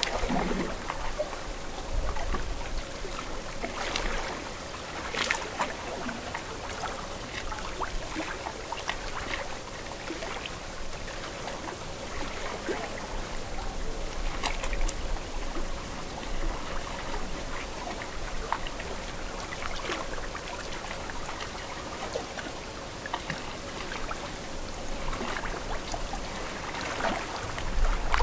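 Small waves lapping and trickling at a lake shore, with scattered little splashes.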